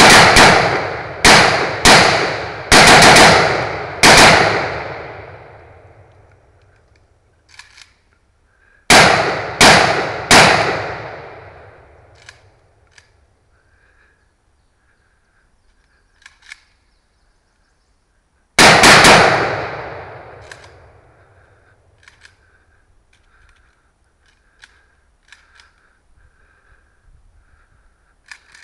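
AK-47 rifle fired as single shots from a distance, each shot followed by a long echoing decay. The shots come in short strings, about five, then three, then one more, with long pauses between that fit a rifle that kept jamming. Faint clicks sound in the pauses.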